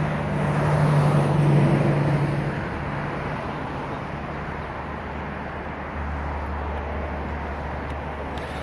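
Road traffic noise: a passing vehicle swells about a second and a half in and then fades, and a lower steady hum comes in about six seconds in.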